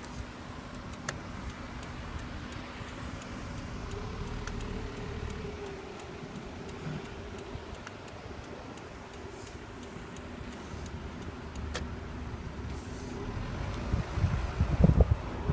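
Car moving slowly, with a steady low engine and road hum and a few faint clicks. Louder low rumbling buffets come in near the end.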